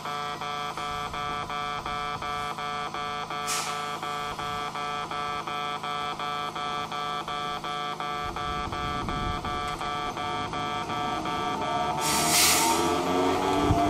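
Electronic level-crossing bell ringing steadily at about three strokes a second. Two sharp hisses of air from the narrow-gauge electric train come a few seconds in and near the end, and from about two-thirds of the way through the rising whine of its traction motors grows as it starts to pull away.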